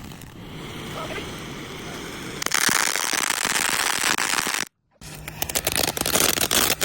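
Ground firework going off: a loud, steady hiss starts about two and a half seconds in and cuts off abruptly, then after a brief gap comes a fast run of crackling pops.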